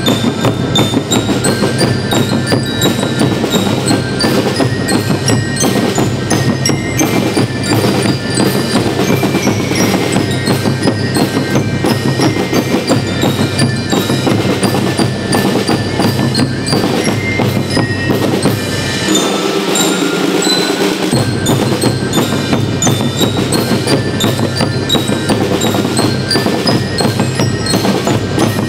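School rhythmic marching band playing a march: a fast, steady snare and bass drum beat under a bright bell-lyre melody. The low end drops out for about two seconds about nineteen seconds in.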